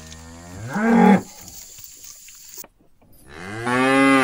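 Cows mooing: two long moos about two and a half seconds apart, each rising in pitch and growing louder before breaking off.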